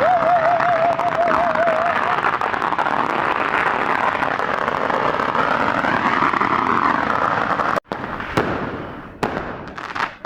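Fireworks going off: a warbling whistle for about two seconds over dense, continuous crackling. After a sudden break near the end come several separate sharp bangs.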